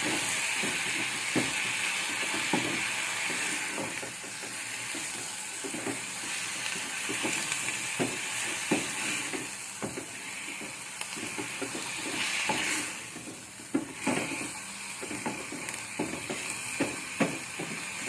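Leafy greens sautéing in oil with onion and tomato in a pan, sizzling steadily, while a spoon stirs them and knocks and scrapes against the pan in frequent, irregular strokes.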